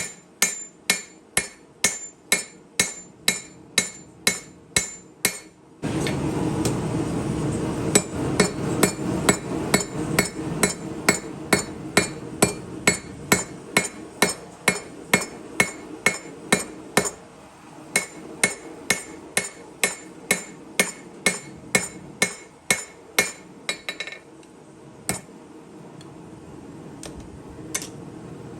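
Hand hammer striking the steel of a chef knife blade on an anvil while forging, in a fast even rhythm of about two to three ringing blows a second, thinning to a few scattered blows near the end. A steady rushing noise comes in about six seconds in and stops a little past three-quarters through.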